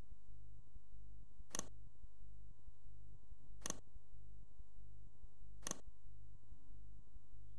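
Three sharp computer mouse clicks about two seconds apart, each a quick double snap of the button going down and up, over a steady low hum.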